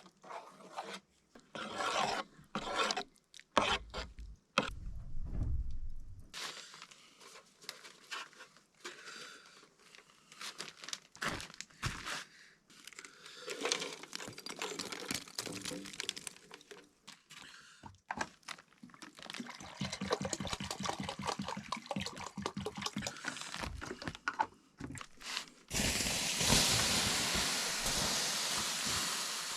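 Kitchen handling sounds: irregular scrapes, taps and knocks of utensils and cookware, with a low rumble a few seconds in, then a steady hiss starting near the end.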